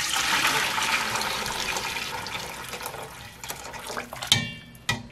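Hot water poured from a stainless-steel pot into a stainless bowl in the sink, a loud splashing gush that tapers off over about three seconds. Near the end, a sharp metal clink with a short ring, then a smaller knock.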